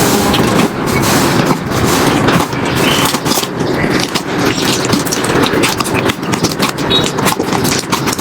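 Slime being squeezed and worked by hand, a continuous squishing with dense rapid crackles and pops, thickest in the second half.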